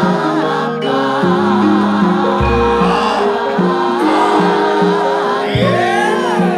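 Javanese gamelan accompaniment: metallophones ring out steady notes while voices sing a wavering, melismatic line over them. A deep gong stroke sounds about two and a half seconds in, and near the end a single voice glides up and back down.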